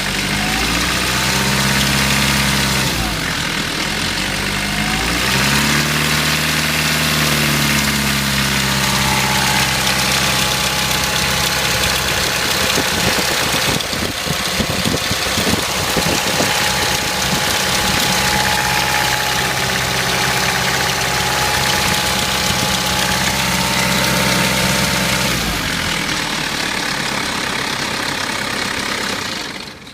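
1993 Mitsubishi Pajero 2.8-litre four-cylinder turbo-diesel running with a rattle that the owner suspects is the timing chain. The revs rise and fall twice in the first several seconds, then the engine runs steadily.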